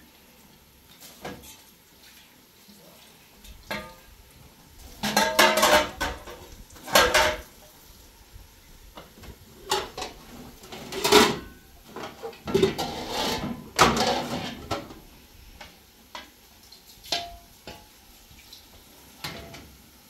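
Dishes and pots clattering and clinking as they are handled, in irregular knocks with short ringing, busiest through the middle stretch.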